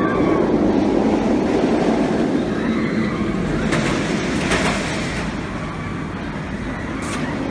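Steady rumble of an amusement-ride train running along its track, with faint wheel squeal, slowly fading.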